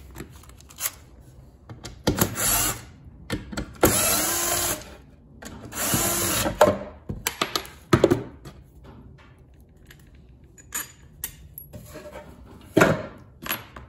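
Small power screwdriver running in three short bursts of about a second each, turning the screws on a string trimmer's gearbox head, followed by scattered clicks and knocks of the tool and metal parts.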